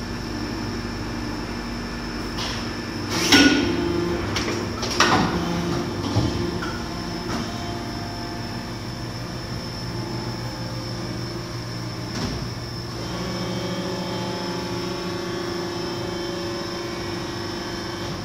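Engel ES 330/80 HL Victory 80-tonne tie-bar-less hydraulic injection moulding machine running in production: a steady mechanical hum, with two loud clanking hits about three and five seconds in and lighter knocks after.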